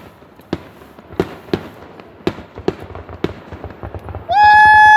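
Aerial fireworks going off: irregular sharp bangs, roughly two a second. Near the end a much louder, sustained high-pitched tone cuts in over them.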